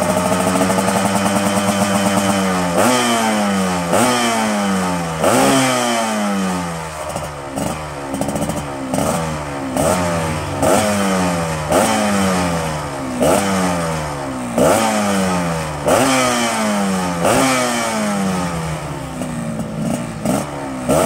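Yamaha RX-King's two-stroke single-cylinder engine revved on the stand through a Nakama Pro Racing 'standar racing' (SR) exhaust. It is held at a steady high rev for the first few seconds, then blipped over and over, about once every second and a bit, each rev shooting up and sliding back down.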